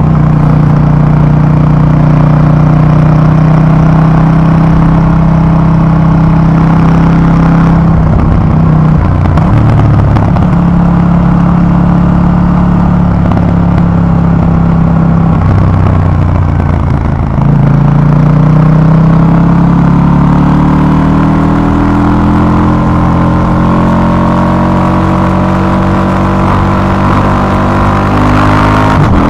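KTM 790 Duke's parallel-twin engine through its stock exhaust, riding at steady revs. The note breaks off briefly about eight seconds in as the throttle is closed, then comes back. From about seventeen seconds in it gets louder and its pitch climbs steadily as the bike accelerates.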